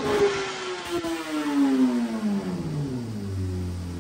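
2017 BMW S1000RR inline-four with a full Akrapovic race exhaust, revs falling steadily from high rpm off the throttle at the end of a dyno run, then settling to a steady low speed about three seconds in.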